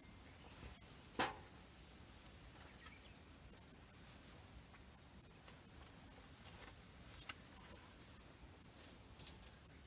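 Insects trilling in a steady, pulsing high-pitched drone, with a few sharp clicks or snaps, the loudest about a second in.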